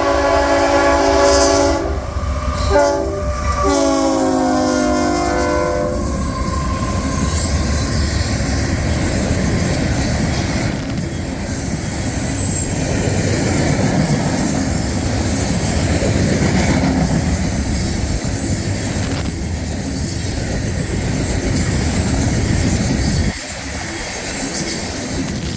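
Union Pacific locomotive's air horn sounding a chord, with a second blast whose pitch drops as the locomotive passes. The coal train's cars then roll by with a steady rumble and wheel clatter.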